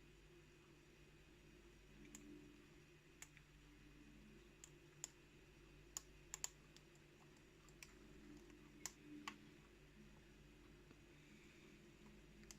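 Faint, scattered clicks of a lock pick working the spool pins of a pin-tumbler challenge lock, over a faint steady low hum.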